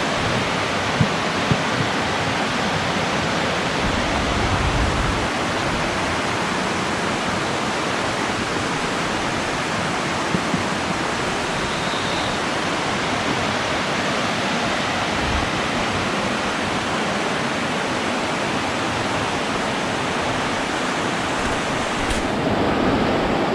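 Steady, loud rush of flowing water, with a few faint knocks early on and about ten seconds in. Near the end the sound changes abruptly, losing its top and gaining low rumble.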